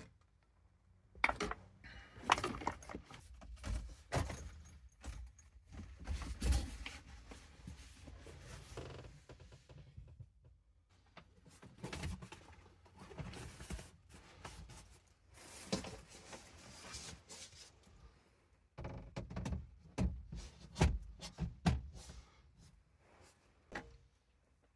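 Irregular knocks, clunks and rustling of objects being handled and set down, in clusters with brief pauses.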